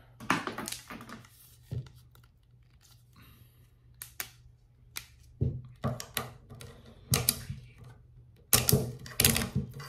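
Plastic grommet strip being pulled off a graphite racquet frame by hand: irregular clicks and rattles as the grommet barrels pop out of the string holes, coming in short clusters.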